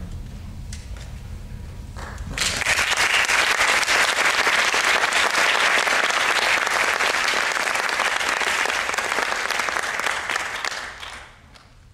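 Theatre audience applauding, starting suddenly about two seconds in and dying away near the end.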